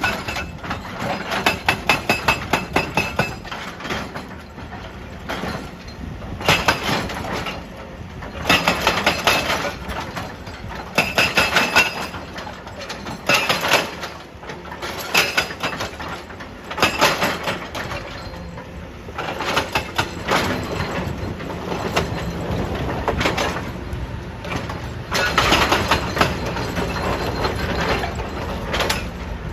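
Excavator-mounted hydraulic rock breaker hammering on stone in repeated bursts of rapid blows, each burst lasting one to a few seconds, over the excavator's running engine.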